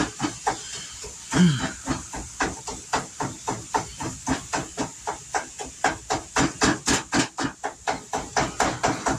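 Rapid, even knocking, about four to five strokes a second, over a sizzling hiss: a spatula chopping up hamburger meat as it fries in a pan on the stove.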